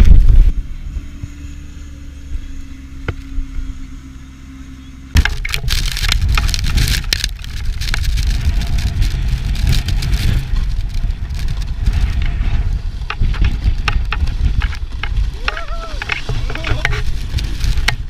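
Wind buffeting a GoPro's microphone on a snowboard run, with the board scraping over snow. After a quieter stretch with a low steady hum, the loud rushing and crackling set in suddenly about five seconds in.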